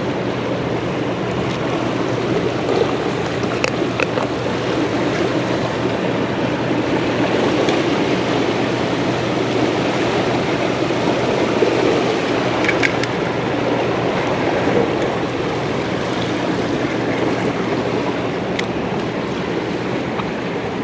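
Steady rush of churning tailwater flowing out below a dam, with a few faint clicks.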